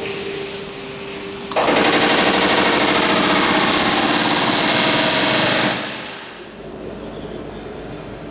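Pneumatic rivet gun hammering in one continuous rapid rattle on aluminium aircraft skin, starting about a second and a half in and stopping about four seconds later.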